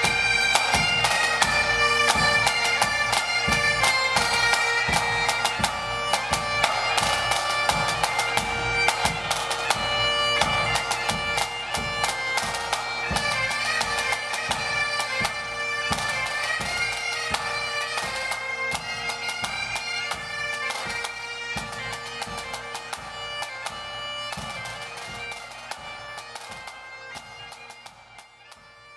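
Bagpipe with its steady drone, joined by hand-held wind instruments, playing a lively tune over snare and bass drum strokes; the music fades out near the end.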